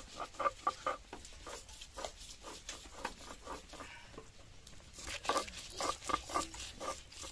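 Round hand-held stone grinding and crushing garlic, dried red chillies, turmeric and mustard seeds on a wet flat stone slab (sil-batta), stone knocking and scraping on stone in short quick strokes. The strokes come thickest near the start and again from about five seconds in.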